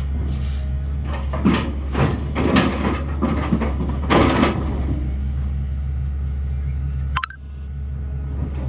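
Sany excavator's diesel engine running steadily, with a run of loud scraping and clanking noises between about one and a half and four and a half seconds in. The sound drops out briefly about seven seconds in, then the engine carries on.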